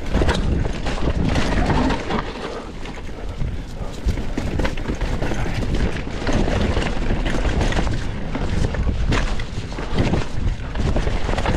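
Mountain bike descending a rough dirt trail: a steady rumble of tyres and frame over the ground, broken by many sharp knocks and rattles as the bike hits bumps, roots and rocks.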